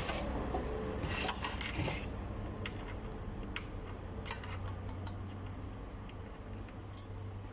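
Scattered light metallic clicks and scrapes of hand tools and parts being handled while a seized concrete mixer motor is worked on, over a faint low hum.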